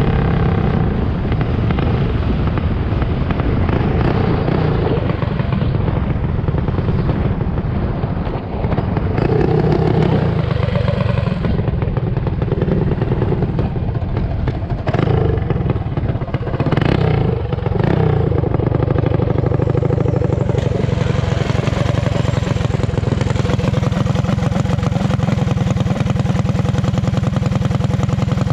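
Mini bike's small engine running hard while being ridden, its pitch rising and falling several times as the throttle is worked.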